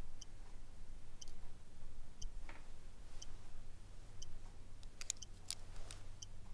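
Desk clock ticking steadily, about one tick a second. A few sharper clicks come just after five seconds in.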